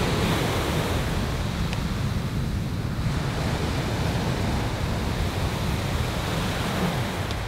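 Sea surf washing steadily on the shore, with wind rumbling on the microphone.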